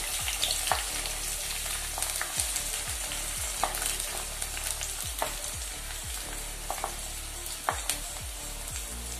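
Chopped onions sizzling in hot coconut oil in a pan, a steady hiss, with irregular light taps and clicks of a wooden spatula pushing more onion off a plate into the pan.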